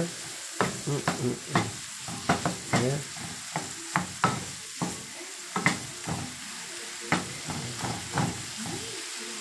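Shrimp sizzling in a garlic, oil and lemon-juice sauce in a nonstick frying pan while a wooden spoon stirs them, scraping and knocking against the pan about once or twice a second over the steady sizzle.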